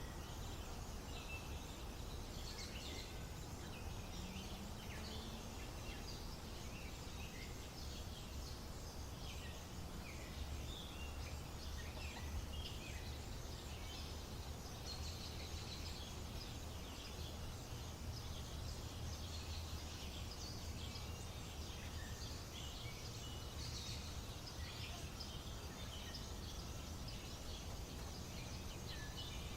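Many small birds chirping, with short, overlapping calls scattered throughout, over a steady low rumble of background noise.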